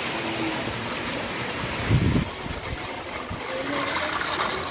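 Heavy rain falling steadily, a dense hiss of rain on a flooded concrete rooftop. About two seconds in there is a brief low thump.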